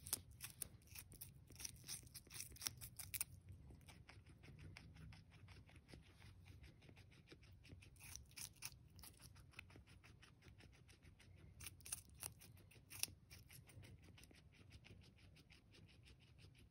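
Guinea pig biting and chewing cucumber: faint, rapid crisp crunching clicks, several a second, coming in louder clusters at the start, about halfway and again past two-thirds of the way through.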